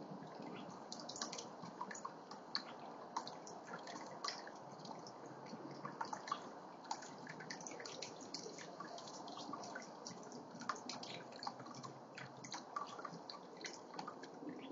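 Small backyard water fountain running: a steady trickle with many irregular drips and small splashes.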